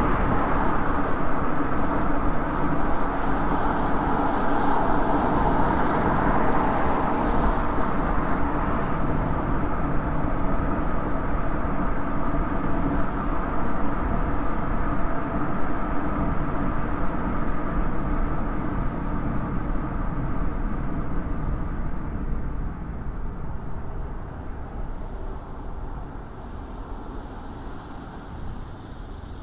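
Toyota Yaris driving on the road: steady tyre, road and engine noise picked up by a microphone outside the car on the rear hatch. The noise grows quieter over the last third.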